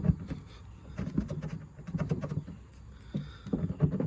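Low cooing of a pigeon in two stretches, with a few light clicks.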